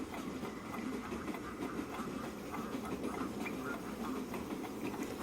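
Soundcore Wakey Bluetooth speaker playing all of its sleep sounds layered together at once (rain, birdsong, wind, wind chimes, campfire crackle, waves, dripping water, a train, bells, farm animals and an electric fan), making a dense jumble. It starts abruptly at the outset.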